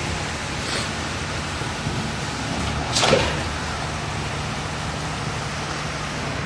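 Concrete pump running, with a steady engine hum under a noisy wash. A loud rushing burst about halfway through comes again at a regular interval as the pump cycles.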